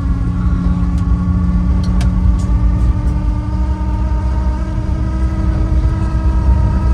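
Mazda 1800 on the move, heard from inside the cabin: engine and road rumble with a steady whining noise over it from the speedometer cable, which is basically broken.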